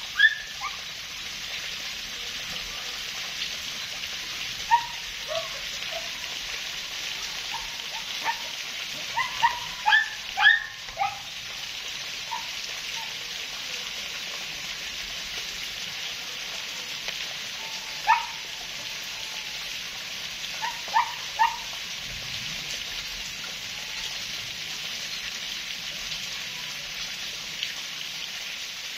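Steady rain falling, with a soaked dog giving short, high-pitched yelps now and then: a cluster of them about ten seconds in, and a few more later on. The yelps are the loudest sounds.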